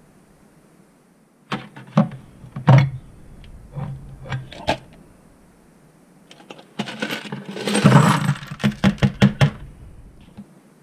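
Metal carburetor parts clinking and knocking as they are dropped into a plastic bucket. Then a clear plastic lid rustles and snaps on around the rim in a quick run of clicks.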